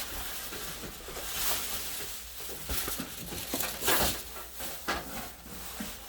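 Packaging being handled during an unboxing: irregular rustling and scraping of box and wrapping, with a few louder rubs and knocks.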